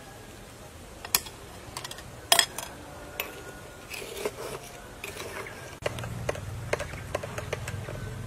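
Spoon clinking against a glass of ice and passion fruit pulp: a few scattered sharp taps, then quicker clinks from about six seconds in as the drink is stirred.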